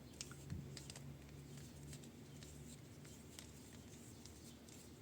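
Faint, scattered light clicks and scrapes of a tool bit and small metal parts being handled while a screw on the bolt is worked loose.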